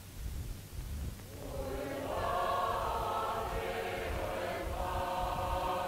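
Film score: a choir swells in about a second and a half in and holds sustained chords over a low background hum.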